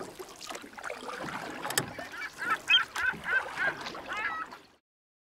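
Birds giving a rapid series of short honking calls, about three a second, ending in one longer call, over the sound of water; everything then cuts off suddenly.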